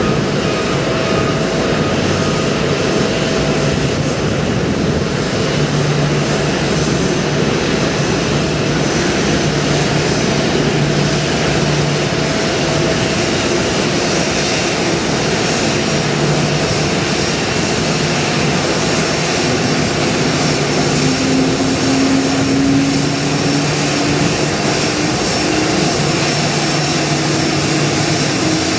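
Boeing 787 jet engines running at taxi idle, a steady loud hiss and low hum, with a tone slowly rising in pitch over the last third as the airliner taxis in toward the gate.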